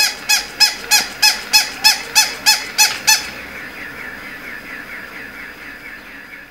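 Battery-operated plush toy dog giving high, squeaky electronic yips, about three a second. They stop about three seconds in, and a softer, faster chirping follows and fades away.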